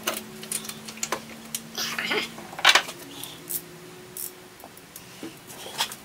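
Irregular metallic clicks and clinks of hand tools being handled and knocked against metal while spark plugs are removed from a car engine.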